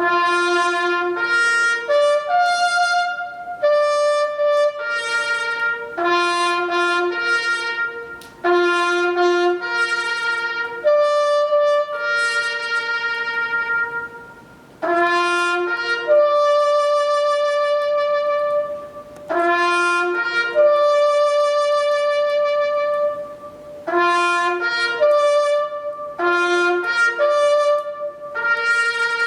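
A solo trumpet plays a slow, solemn melody for a moment of silence, in phrases of held notes with short breaks between them.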